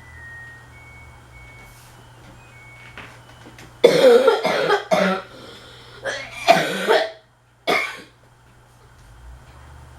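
A person coughing in two bouts, about four and six seconds in, with one short cough just before eight seconds, over the steady low hum of a Fanimation Belleaire ceiling fan running on medium speed.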